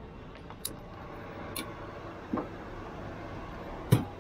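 Four sharp metal clinks of a cooking ladle against a wok, spread over a few seconds, the last the loudest, over a steady background hum.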